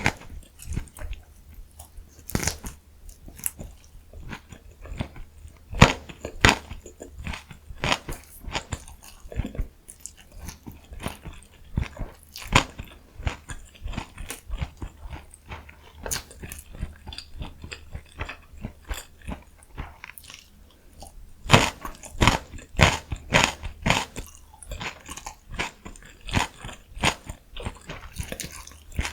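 Close-miked ASMR eating: a person chewing and biting food, with many short, crisp crunches and wet mouth clicks at an irregular pace. A denser run of louder crunches comes about three quarters of the way through.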